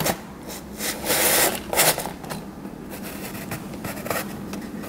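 Cardboard rubbing and scraping inside a homemade shoebox vending machine as its parts and the squishy are moved. There are two brief scrapes, about a second in and again just before two seconds, then only a faint hiss.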